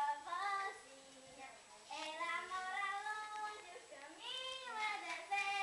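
A child's high voice singing long gliding notes, with short breaks between phrases.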